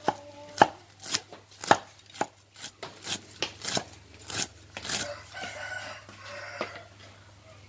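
Knife slicing fresh lemongrass stalks into thin rounds on a wooden cutting board, with sharp cuts about twice a second. A rooster crows in the background in the second half.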